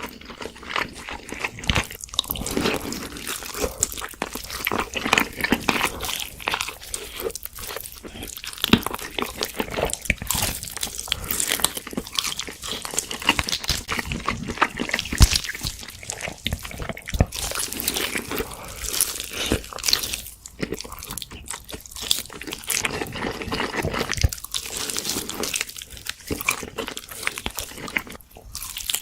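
Close-miked eating sounds: irregular crunchy bites with wet, sticky chewing and mouth clicks, going on steadily.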